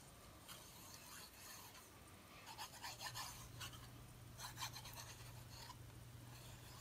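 Faint, scratchy strokes of a glue bottle's fine tip dragging over cardstock as a bead of Art Glitter Glue is run along a paper panel, coming in several short bursts. A low steady hum comes in about halfway.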